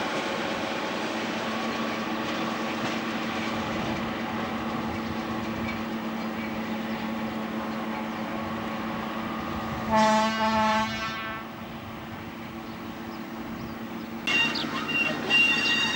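Brill Model 75 railcar's engine running steadily as it pulls away, then about two-thirds of the way through a short horn blast of about a second. Near the end, intermittent high squeals.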